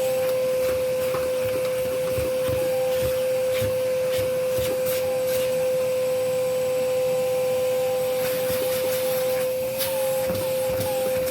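Vacuum cleaner running steadily with a constant whine, with irregular rubbing and tapping of the nozzle.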